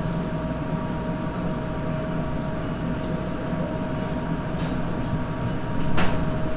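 Steady mechanical hum of commercial kitchen equipment: a low rumble with two faint steady tones. A sharp clack about six seconds in.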